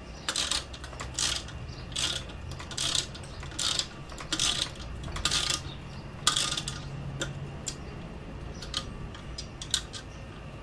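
Hand ratchet clicking as the last bolt of a motorcycle license plate bracket is turned, in short strokes a little over once a second for about six seconds, then a few single clicks.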